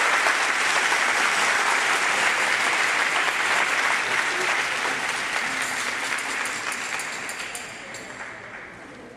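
Audience applauding, the clapping thinning out and fading away over the last few seconds.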